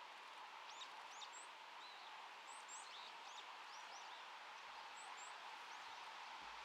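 Faint outdoor ambience: a steady hiss with distant birds giving short, thin, high chirps and sweeping notes scattered throughout.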